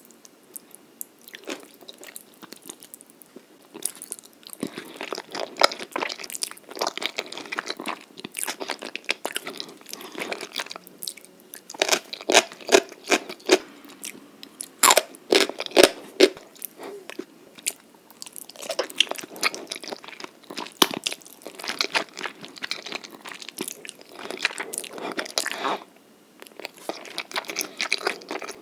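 Close-miked ASMR eating: chewing, biting and crunching food in irregular clusters of crisp clicks and crunches.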